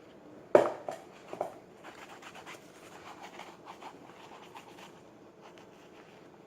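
A sharp knock, then a brush scrubbing a canvas sneaker: a run of short, quick scratchy strokes that grows fainter toward the end.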